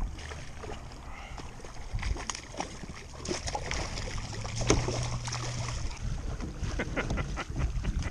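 Irregular knocks, clicks and rattles of a freshly caught bluefish and fishing gear being handled on a kayak, with wind on the microphone. A brief low hum comes about halfway through.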